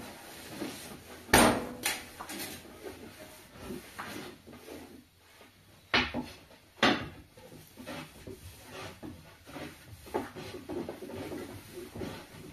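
Irregular knocks and clatter of pots, utensils and wood being handled during cooking, with rustling between them. The loudest is a sharp knock about a second and a half in, and there are further strong knocks near two, six and seven seconds.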